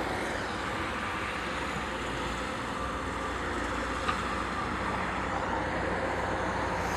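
Steady engine and road noise from a vehicle on the move, with one faint click about four seconds in.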